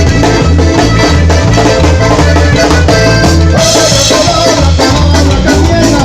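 Loud Latin dance music in a salsa style with a heavy, regular bass beat, drums and maracas. A brief swell of bright hiss comes a little after halfway.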